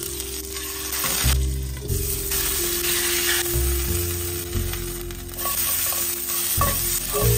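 Hot oil sizzling in a frying pan, first around a frying stuffed schnitzel, then around sliced onion and bell pepper being stirred with a spatula near the end. Background music plays underneath.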